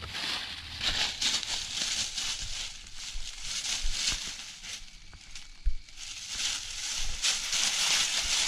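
Footsteps crunching and rustling through deep dry fallen leaves in uneven bursts, with a single low thump a little before six seconds in.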